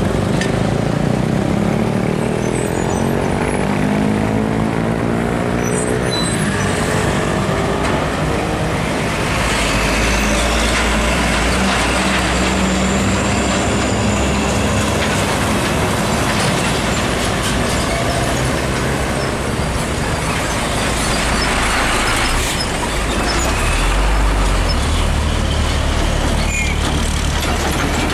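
Heavy diesel trucks and motorcycles passing close by. Engine notes rise and fall in the first few seconds. A long truck towing a tarp-covered trailer then runs past with a deep engine note, and another heavy vehicle follows near the end.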